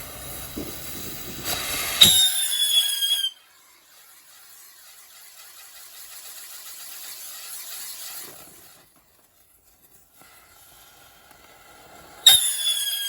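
Whistling fireworks: two shrill whistles, each sliding slightly down in pitch for about a second, about two seconds in and again near the end. A fainter firework hiss runs between them.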